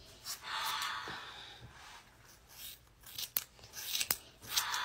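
Hand scissors cutting through a ponytail of hair: a stretch of rough cutting noise lasting over a second, then a few sharp clicks of the blades.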